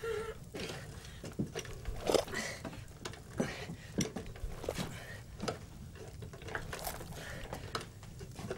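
Irregular wooden knocks and thumps of a long wooden pole being pounded down into a box, with small clattering in between.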